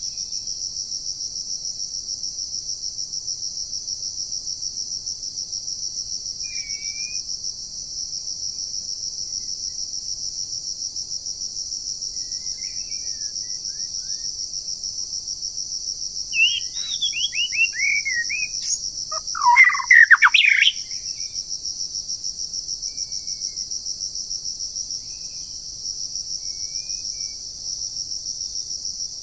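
A steady, high, pulsing insect chorus throughout, with scattered short bird chirps. Just past halfway a bird gives a quick run of falling notes, followed by a louder warbling phrase of about a second.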